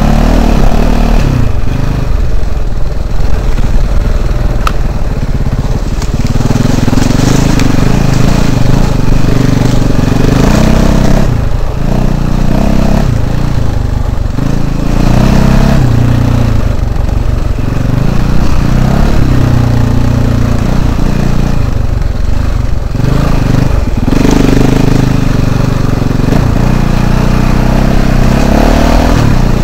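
Off-road motorcycle engine under constantly changing throttle, its pitch rising and falling as it climbs over rough, overgrown ground and dropping off briefly a few times.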